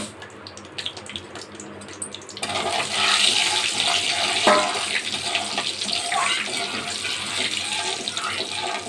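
Spices spluttering in hot mustard oil in a steel kadhai with small crackles, then about two and a half seconds in a loud, steady sizzle starts as something moist goes into the hot oil and is stirred with a metal spatula.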